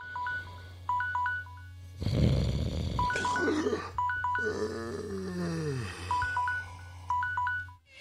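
Produced transition sound effects between podcast segments. Short electronic beeps on two pitches come in several clusters over a steady low hum, with a noisy swell a couple of seconds in and a falling, wailing glide just past the middle.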